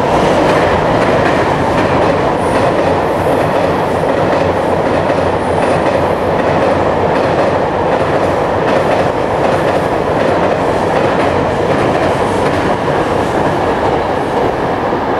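JR Freight M250 Super Rail Cargo electric multiple-unit freight train passing through the station, a loud, steady rumble of wheels on rail that holds for the whole train.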